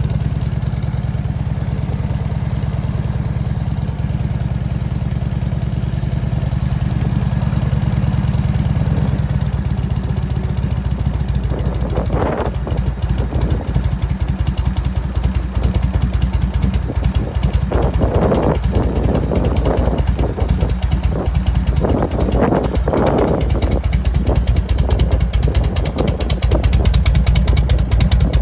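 Harley-Davidson Evolution 1340 V-twin of a 1998 FLSTC idling on its stock mufflers. About ten seconds in the note drops, and after that louder, rougher bursts come and go. The abnormal noise in this exhaust is one the owner traced to inside the stock muffler.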